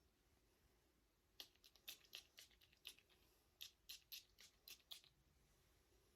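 Michael Kors Sparkling Blush perfume atomizer spraying in about a dozen short, faint spritzes, the stiff pump hard to spray and giving only brief puffs.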